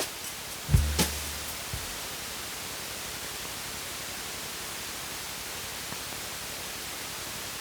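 A final low bass note and a couple of drum-machine hits just under a second in end the electronic music, leaving a steady, even electronic hiss.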